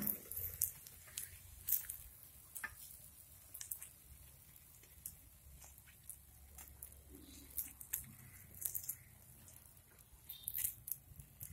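Irregular light clicks and scrapes of a utensil lifting cooked egg paniyarams out of a paniyaram pan, with the paniyarams set down on a stainless steel plate.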